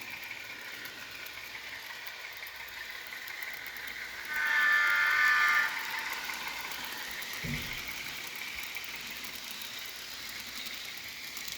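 Rapido HO scale RSC-14 model locomotive's DCC sound decoder playing a diesel engine running steadily while the train is under way. About four seconds in there is one horn blast of about a second and a half, several tones sounding together.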